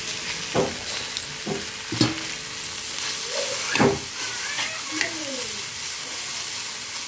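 Cut okra sizzling in hot oil in a metal pan, stirred with a metal slotted spoon that scrapes and knocks against the pan several times, loudest about four seconds in.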